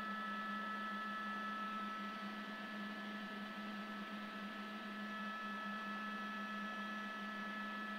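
News helicopter cabin drone carried over the broadcast audio feed: a steady hum with hiss and several steady higher tones, unchanging throughout.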